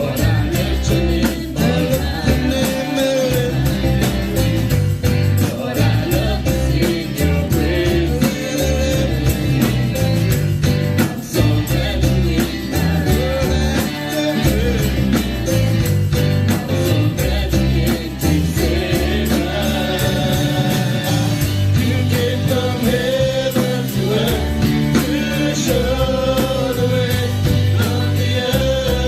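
Gospel worship music: singing over a band with heavy bass and a steady drum beat.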